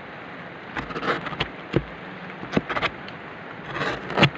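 Machete blade slicing thin shavings off the cut end of a sugar palm flower stalk: a run of irregular sharp chops and short scrapes, the loudest stroke near the end. The cut face is being trimmed clean so the stalk can be tapped for sap.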